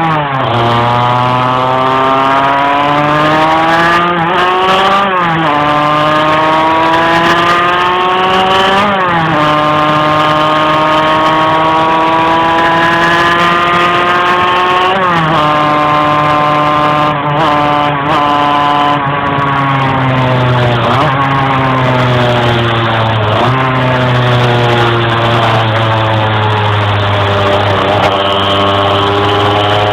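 Small two-stroke moped engine running under way, its pitch climbing slowly and then dropping sharply several times. The engine is struggling to rev up while riding.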